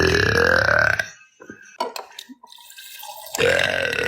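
A woman belching loudly twice: a long belch that ends about a second in, then a shorter second belch near the end.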